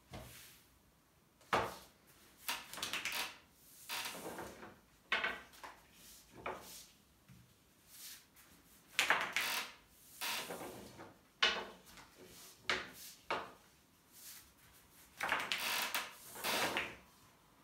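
Long thin wooden rolling pin (oklava), with yufka dough wound around it, rolled back and forth over a floured glass tabletop: a series of uneven rolling strokes, each about a second long, with short pauses between.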